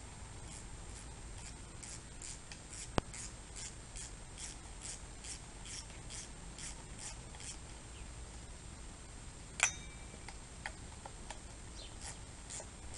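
A T-handle hex wrench turning out a cylinder-head screw on an oil-less air compressor pump, giving light, even ticks about two or three a second. There is a sharp click about three seconds in and a louder clack near ten seconds; the ticking stops for a few seconds and starts again near the end.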